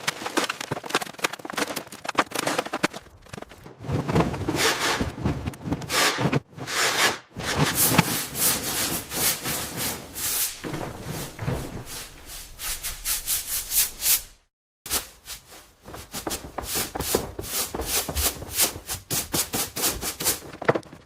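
Repeated rough rubbing strokes, several a second, like scrubbing or sanding a surface, breaking off briefly twice.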